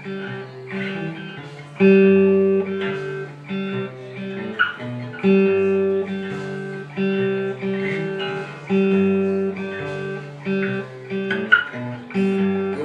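Guitar playing an instrumental intro, with plucked chords that change about every half second to one second.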